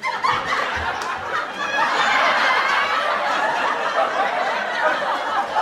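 Crowd laughing, many people at once, starting abruptly and swelling fuller about two seconds in, then carrying on.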